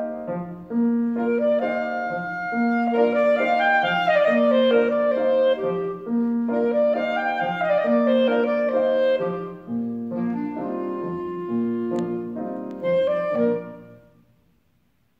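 Clarinet playing a melody over piano accompaniment that keeps coming back to the same low note. The music stops near the end, the last notes dying away.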